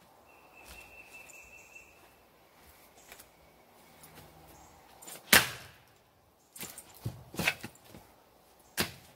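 Double bit axe chopping into knotty oak rounds on a chopping block: one loud chop about five seconds in, a quick run of lighter knocks a second or two later, and another sharp chop near the end.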